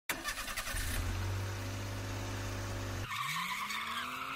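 Car engine sound effect: an engine runs with a low steady hum, then about three seconds in it gives way to a high screech with a wavering pitch, like tyres squealing.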